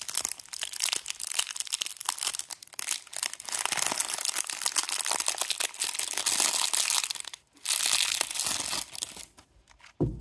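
Plastic shrink-wrap crinkling and tearing as a sealed deck of cards is unwrapped by hand: dense crackling for about seven seconds, a brief pause, then a shorter burst of crinkling before it goes quiet.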